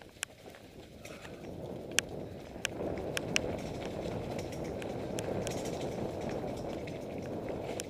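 Mountain bike rolling fast down a dirt singletrack: a steady rumble of tyres on the ground, with sharp clicks and rattles from the bike jolting over bumps. The rumble grows louder about three seconds in.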